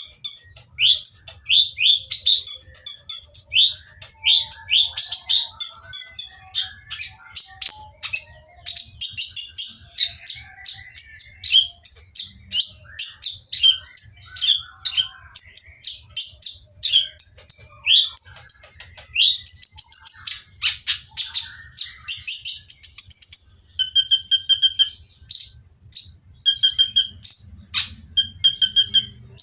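Kolibri ninja sunbird singing a fast, harsh, chattering song: a dense string of quick high chirps and short sweeping notes. Near the end it changes to repeated buzzy notes. This noisy song is used as a lure to set other kolibri ninja singing.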